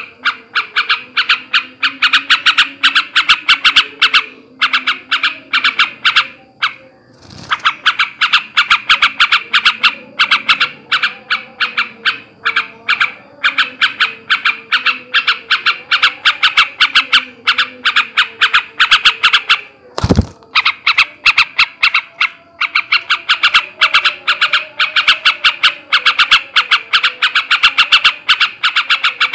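Male yellow-vented bulbul chattering in long runs of rapid, harsh notes, many a second, broken by short gaps and one pause about seven seconds in. This is the excited, aroused call that keepers play to provoke other bulbuls into calling. A single sharp click cuts in about twenty seconds in.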